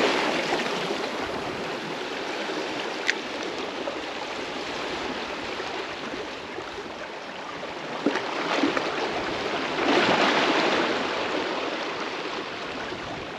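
Strong current of sea water rushing and splashing as a steady noise that swells about ten seconds in, with two short sharp clicks.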